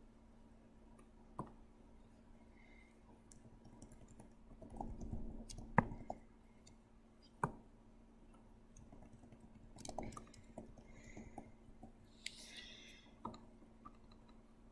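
Scattered single clicks of a computer mouse, with a denser rustle of handling about five seconds in, over a faint steady hum.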